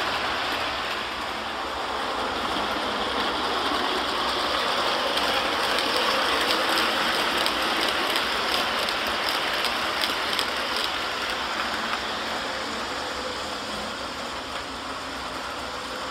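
Model train passenger cars rolling along the track, their metal wheels giving a steady running rumble with rapid clicking over rail joints. It grows louder toward the middle as the cars pass close, then fades.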